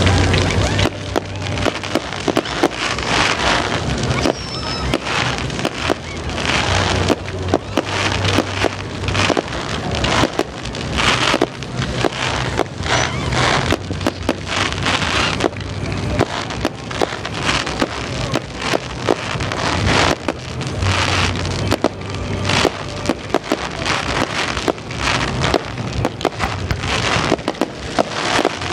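Fireworks crackling densely and without a break: ground fountains spraying sparks and shells bursting overhead, making a thick, rain-like crackle of many sharp pops. A low steady hum runs underneath.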